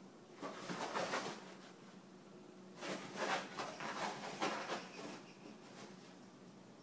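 Two small dogs play-fighting in a padded dog bed: scuffling and rustling on the bed's fabric in two stretches, a short one about half a second in and a longer one from about three to five seconds.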